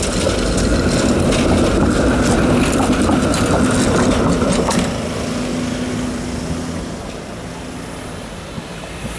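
TTC ALRV articulated streetcar passing close by on snowy track, with a loud rumble of wheels and running gear and scattered clicks. It fades after about five seconds, leaving a faint steady hum that then eases away.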